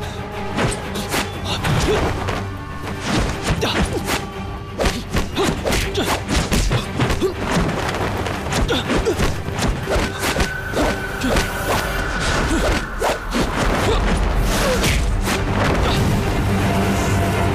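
Fight-scene sound effects of a kung fu duel: a rapid run of punch and kick hits and body thuds over dramatic background music.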